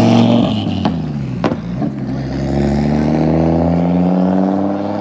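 Big-turbo Volvo S60R's turbocharged five-cylinder engine under way, rising in revs, then dropping off throttle about half a second in with two sharp clicks, then pulling up in revs steadily again before easing off near the end.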